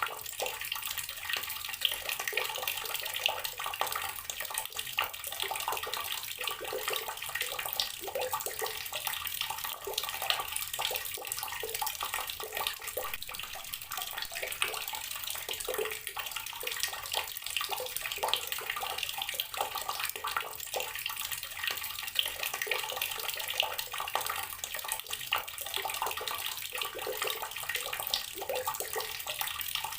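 Tap water pouring steadily into a container of water, a continuous splashing stream with many small splashes.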